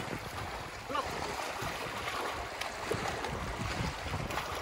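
Small sea waves lapping and splashing around shoreline rocks, a steady wash of water. A short, faint cry is heard about a second in.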